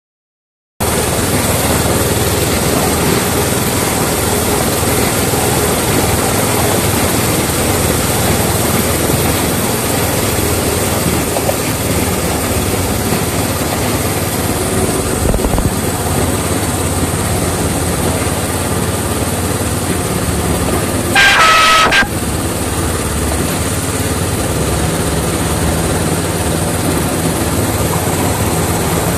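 Miniature-railway class 31 locomotive running along the track, heard from the cab as a steady running noise, with one short horn toot a little after 21 seconds in.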